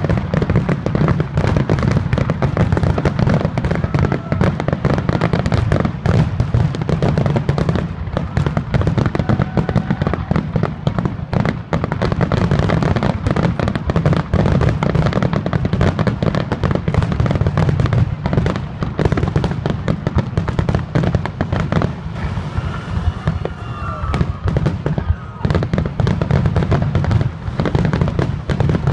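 Fireworks grand finale: a dense, continuous barrage of aerial shell bursts, rapid overlapping bangs and booms with no real pause.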